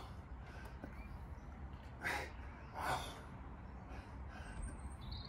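A man breathing hard under effort while pressing a barbell, with two sharp exhales about a second apart, over a steady low rumble.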